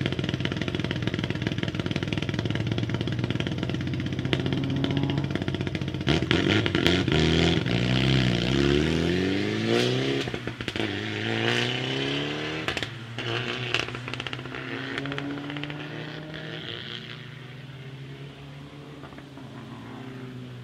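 Rally car engine held at steady raised revs on the start line, then launching about six seconds in. The revs climb and drop back through several quick upshifts, with sharp crackles at the launch. The sound then fades away into the distance as the car drives off.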